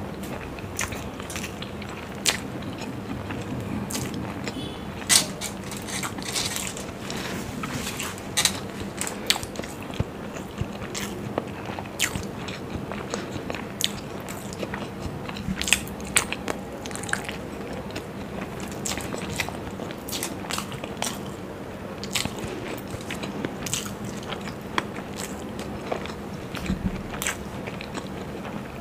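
Close-miked chewing of masala-fried hard-boiled eggs: irregular sharp mouth clicks, several a second, over a faint steady hum.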